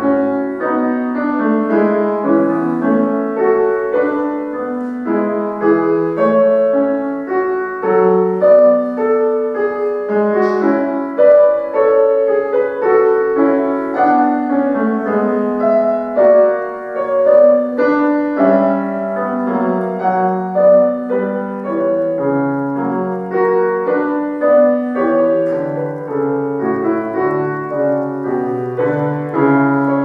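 Solo classical piano played on a concert grand: a continuous flow of overlapping notes across the bass and middle registers, with the loudness swelling and easing in phrases.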